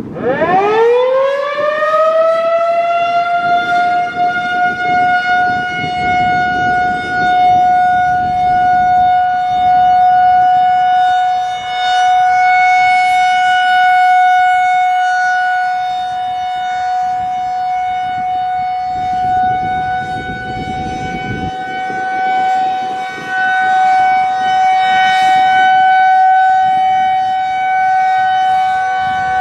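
Federal Signal 2001-130 electromechanical warning siren winding up from a start, its pitch climbing fast over about two seconds, then holding one steady tone that swells and dips in loudness.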